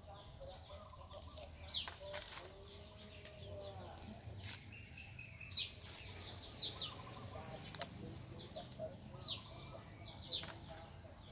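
Small knife clicking and scraping against garlic cloves as they are peeled. Short, quick falling chirps of birds recur every second or so, with faint chickens clucking in the background.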